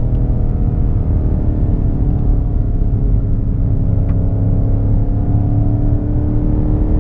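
2019 BMW M5 Competition's twin-turbo V8 running under way at fairly steady revs, its note sagging slightly and then rising a little near the end, over a heavy low rumble from the exhaust.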